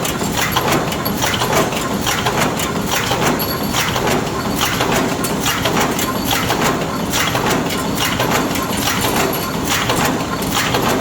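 Four-station bolt forging machine running at speed, its rams striking in a fast, even clatter of metal knocks as it forms wedge anchor bolts.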